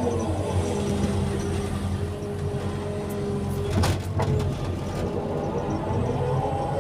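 Excavator's diesel engine running under load, with the whine of its hydraulics shifting in pitch as the arm and bucket work. A few sharp knocks come about four seconds in.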